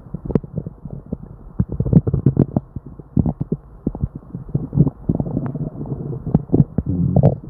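Upset stomach and bowels gurgling and popping without pause: many quick irregular pops, with longer low gurgles a little past the middle and near the end. These are the bowel sounds of an upset stomach with diarrhea.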